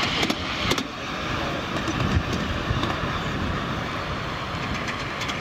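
Ride-on miniature train with passengers running along a 5-inch gauge raised track, its wheels rumbling steadily on the rails with a few sharp clicks near the start.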